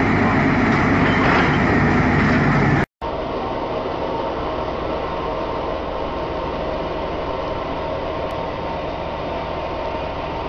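Cat excavator's diesel engine running hard as its ripper tooth breaks rock, loud and dense, cutting off abruptly about three seconds in. After that, a quieter, steady machinery hum with a faint high whine.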